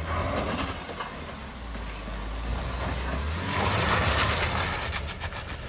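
Stock 2012 Jeep Wrangler JK Rubicon's 3.6-litre V6 working under load as it crawls up a rock obstacle: a low engine rumble with a rushing noise over it that swells from about three and a half to five seconds in. Its tyres are at full street pressure, which the driver says cost it traction on this climb.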